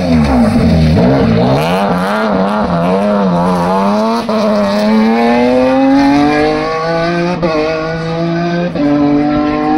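BMW 1 Series rally car's engine at full stage pace. Its pitch drops as the car goes by close, then climbs as it accelerates away, with a few gear changes in the last seconds.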